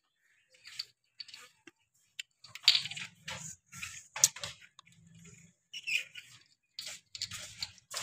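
Plastic bottle caps clicking and scraping on a tiled floor as two Alexandrine parakeets chew and push them with their beaks. The clicks come sparsely at first and grow dense from about two and a half seconds in.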